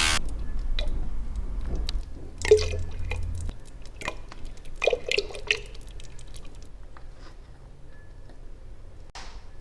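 Sparse drip-like plops and clicks, each with a brief ringing tone, loudest about two and a half seconds and five seconds in, then thinning out, after dense ambient music cuts off abruptly at the start.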